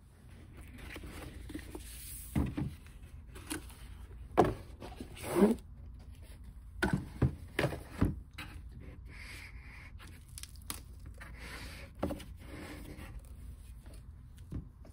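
A large hardcover book handled on a table: slid out of its cardboard case and set down, with scraping and rubbing of cardboard and board covers and a series of separate knocks and thumps.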